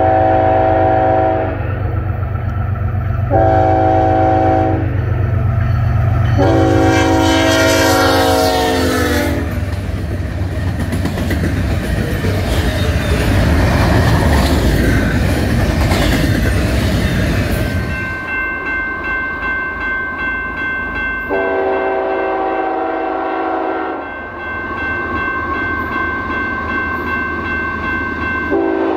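Canadian Pacific locomotive's five-chime Nathan K5HLB air horn sounding at a crossing: two blasts, then a longer one that drops in pitch as the locomotive passes close by. Then the train rolls past with a loud rumble and the clatter of wheels. About eighteen seconds in, the sound switches to the same horn heard from farther off, sounding again over the rolling of the approaching train.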